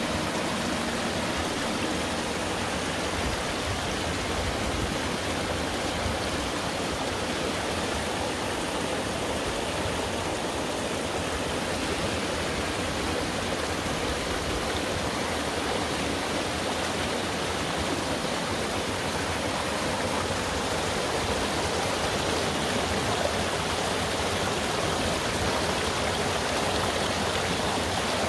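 Water of a mountain valley stream running, a steady rushing that holds even throughout.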